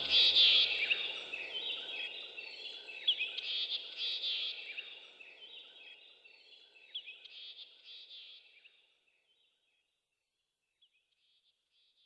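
Many small birds chirping in a busy chorus, fading out over about nine seconds. The last held notes of the song's music die away in the first second or so.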